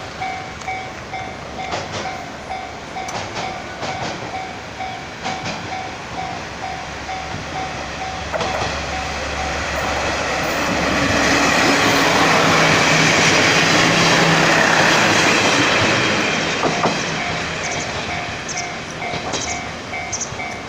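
Level-crossing warning bell clanging at about two strikes a second as a train comes through; from about ten seconds in, the rumble and wheel clatter of the passing train swell up and drown the bell for several seconds, then fade and the bell is heard again.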